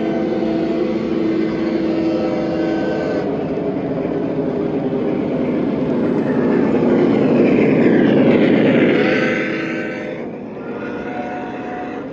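Three-rail O gauge model train running on the track, its wheels and motor growing louder as it passes close about eight seconds in, then dropping off.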